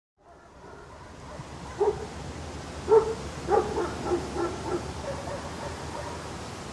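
A dog barking in a run of short barks, the first about two seconds in and the loudest about a second later, over a steady low hum.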